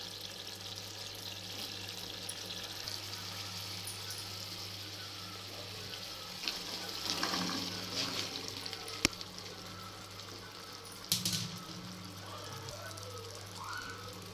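Tomato masala simmering and sizzling in a kadai, a steady hiss. About seven seconds in, cut green beans and potato pieces are tipped in, briefly louder, followed by a sharp knock a few seconds later.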